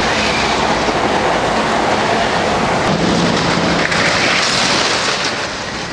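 Wooden roller coaster train running along its wooden track: a steady, loud rumble of the wheels on the track.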